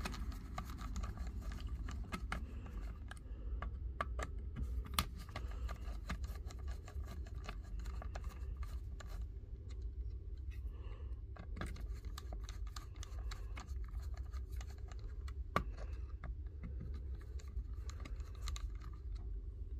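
Small screwdriver, a T10 Torx driver, undoing tiny screws inside a laser level's housing: scattered light clicks and scratches, with a sharper click about 5 s in and another near 15.5 s. A steady low hum runs underneath.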